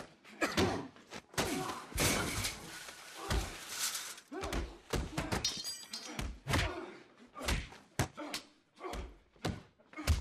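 Film fight sound effects: over a dozen heavy thuds and slams of punches and bodies hitting walls and furniture, some in quick succession, some a second or more apart.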